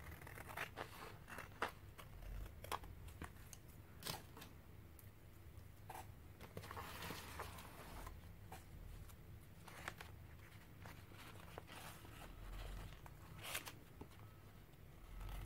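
Scissors snipping through paper, trimming a glued printer-paper cutout flush with the edge of a journal page: faint, scattered snips with some paper rustling.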